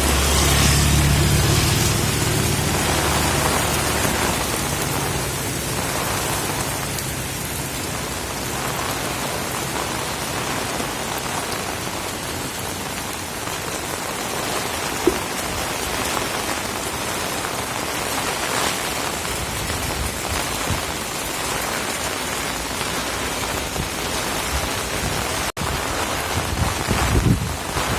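Heavy rain pouring steadily, with a low rumble during the first few seconds.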